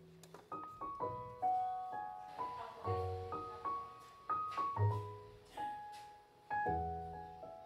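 Background music: a gentle piano piece, a slow melody of single notes over low bass notes.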